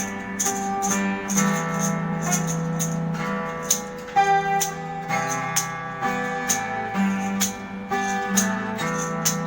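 A band playing an instrumental passage: guitar chords over a steady low bass line, with a light percussion tick about twice a second.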